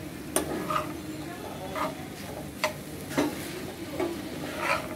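Spatula stirring and scraping snake gourd bhaji in a frying pan over a steady sizzle of oil, as the vegetable slow-fries soft. About seven sharp scrapes and knocks of the spatula on the pan come at uneven intervals.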